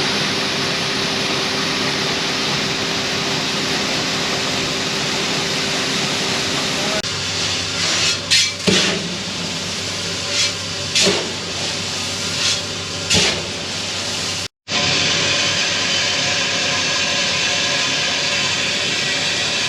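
Shelled corn pouring out of a semi grain trailer's hopper with a steady hiss, an engine humming underneath. Partway through, a run of short metallic knocks and scrapes sounds as the hopper is cleaned out.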